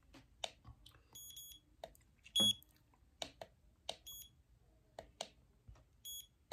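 Digital thermometer beeping as temperature readings are taken: four short high beeps, most of them quick doubles, spaced one to two seconds apart, with soft clicks in between.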